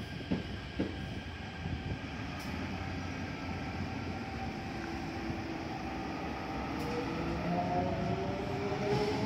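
Toei 5300-series electric subway train pulling into a station, its rumble and the whine of its traction motors growing louder as it comes alongside the platform. Two sharp clicks about half a second apart near the start.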